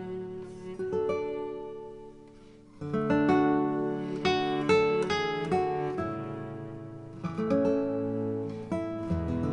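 Background music: acoustic guitar, plucked and strummed notes that ring out and fade, with a short lull about two seconds in.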